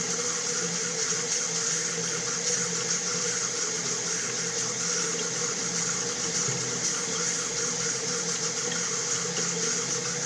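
Water running steadily from a tap: an even, unbroken rush of flowing water.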